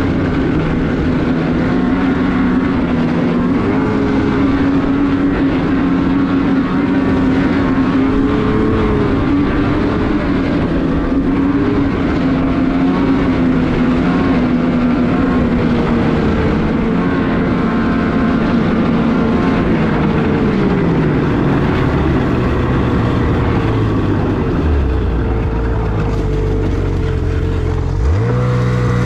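Lynx Rave snowmobile engine running under way, its pitch rising and falling with the throttle. It drops to a low drone about two-thirds of the way through, then revs up sharply near the end.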